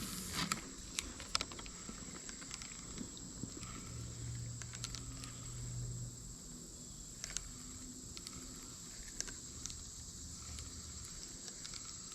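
Insects, crickets or the like, trilling steadily on one high pitch, with scattered faint clicks over it.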